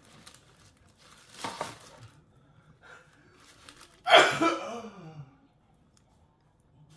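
A man sneezes loudly once, about four seconds in: a sudden explosive burst that falls into a voiced tail dropping in pitch, lasting about a second. A shorter rush of noise comes about a second and a half earlier.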